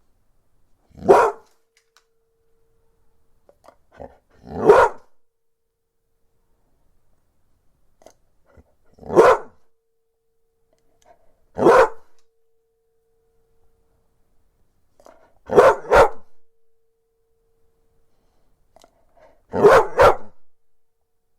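Bull terrier barking: four single barks a few seconds apart, then two quick double barks near the end.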